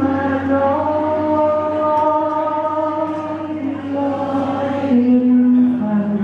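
A man singing a slow Thai ballad into a microphone, long held notes that slide from one pitch to the next, over a steady accompaniment.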